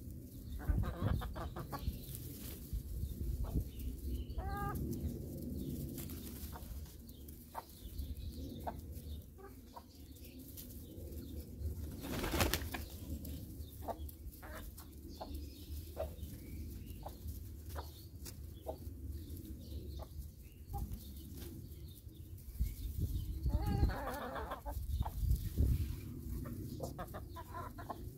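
A flock of backyard hens feeding, with short clucks now and then and many quick pecking taps. A louder knock comes about twelve seconds in, and a burst of clucking near the end.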